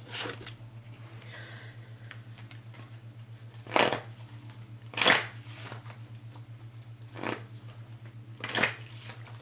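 Tarot cards being shuffled and handled in about five short bursts, the loudest two near the middle, over a steady low electrical hum.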